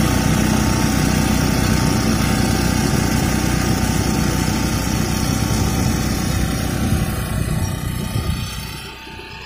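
Air-cooled 5 HP diesel engine of a walk-behind power reaper running steadily under load while cutting millet stalks, fading away near the end.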